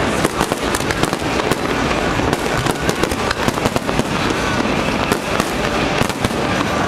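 Aerial firework shells bursting overhead in a rapid, unbroken string of bangs and crackles.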